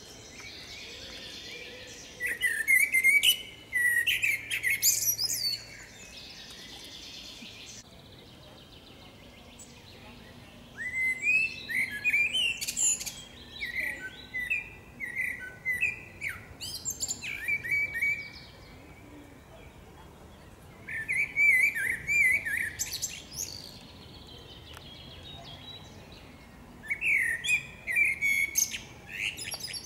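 Common blackbird singing: four song phrases a few seconds apart, each a run of warbling notes mixed with high, thin twitters.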